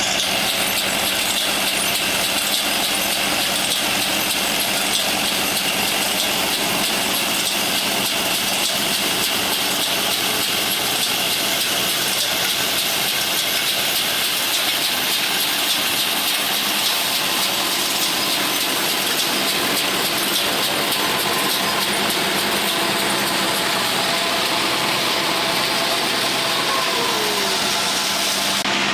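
An engine-driven farm machine running steadily: a constant mechanical drone with a strong hiss on top, unchanging in level.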